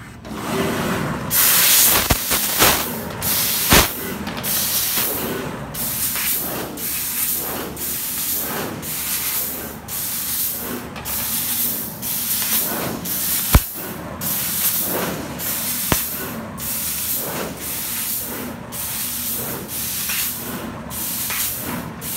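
Prima CNC fiber laser cutting a run of holes in aluminum sheet: the cutting head's assist gas hisses on and off about once a second, hole after hole, with a few sharp snaps among the blasts.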